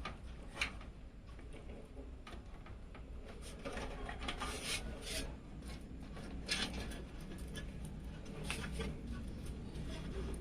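Hands rubbing, scraping and clicking against PC case panels, parts and cables while a computer is assembled: a run of short clicks and scrapes, busiest about four to five seconds in.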